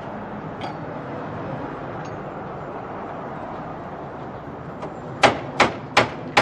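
Hammer blows on a chisel against a locked wooden door, a quick run of sharp metallic strikes about three a second starting about five seconds in, as the door is forced open. Steady street noise underneath.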